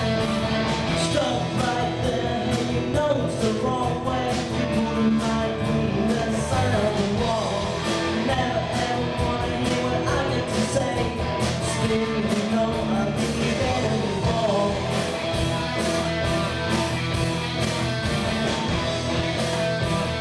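Live rock band playing: a male lead singer over electric guitars, bass and a drum kit.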